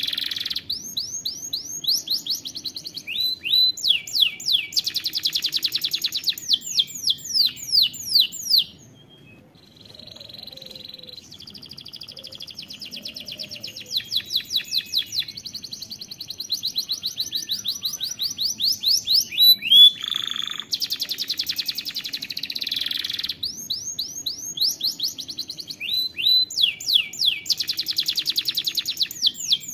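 Domestic canary singing: long runs of fast repeated trills and sweeping notes, breaking off briefly about nine seconds in and then picking up again.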